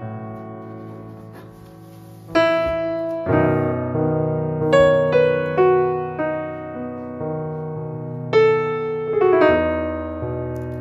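Background piano music: gentle notes and chords, each struck and left to ring and fade.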